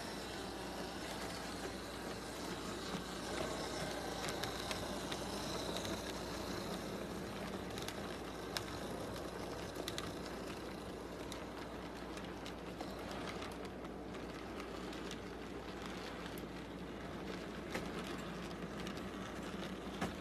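HO scale model train running past: the steady hum of its electric motor and the rolling of its wheels on the track, with a few sharp clicks scattered through.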